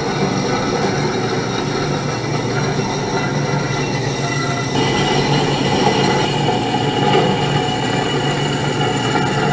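Vertical bandsaw cutting through metal tubing: the steady running sound of the blade working through metal. About five seconds in it grows louder and a steady high ringing tone joins it.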